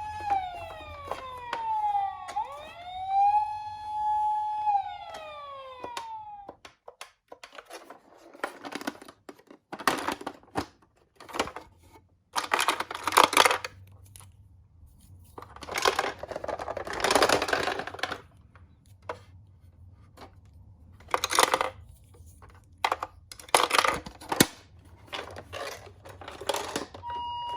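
Electronic toy siren wailing, its pitch falling and rising, which cuts off about six seconds in. After that come repeated bursts of rattling clatter with sharp clicks as toy minicars roll down a sloped track.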